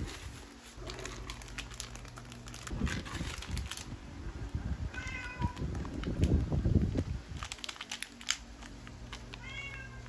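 A house cat meows twice, briefly, about five seconds in and again near the end, over light rustling and clicks from a leather bag and a candy packet being handled.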